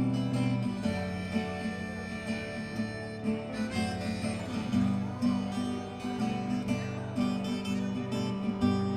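Acoustic guitar-led country-folk band playing an instrumental intro with a steady strummed and picked rhythm.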